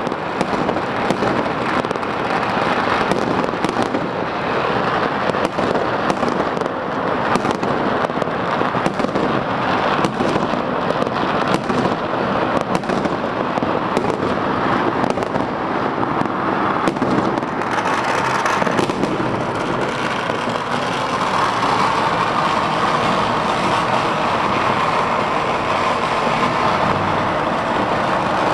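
Dense crackling of fireworks and firecrackers set off across a city on Chinese New Year's Eve, with many sharp cracks and bangs overlapping continuously. After about two-thirds of the way through, the separate cracks thin and merge into a steadier rushing noise.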